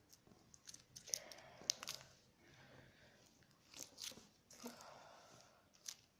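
Faint sticky crackling of wet magic putty being stretched and squeezed in the hands: scattered small clicks and pops with a few short soft tearing swells.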